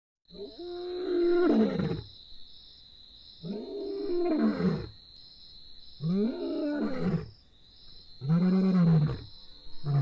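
Male lion roaring: four long, deep roars in slow succession, each rising and then falling in pitch, followed by a short grunt near the end. A steady high-pitched tone runs underneath.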